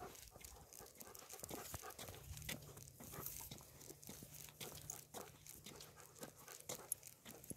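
Faint, irregular clicks and scuffs of footsteps and dogs' paws on a paved path as three leashed dogs are walked. A low steady hum comes in about two seconds in.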